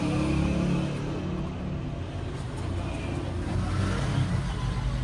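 Low, steady rumble of a motor vehicle engine running.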